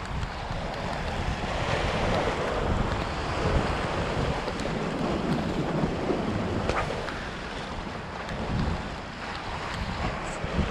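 Sea waves washing over the rocks of a jetty, swelling and easing, with wind blowing across the microphone.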